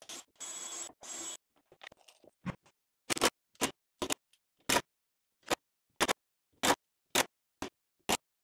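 Cordless drill/driver running steadily for just over a second as it drives pilot holes and T25 screws through a steel joist repair strap into the wood. Then a string of short, sharp bursts follows, about two a second, as fastener after fastener is driven.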